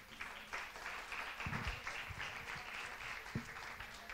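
Audience applauding in a lecture hall. The clapping starts suddenly and dies away near the end, with a few low thumps in among it.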